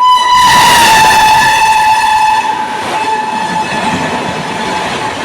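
Indian Railways train sounding a long steady horn as it rushes past at speed. The horn's pitch drops slightly about a second in, over the loud rush and clatter of wheels on rail.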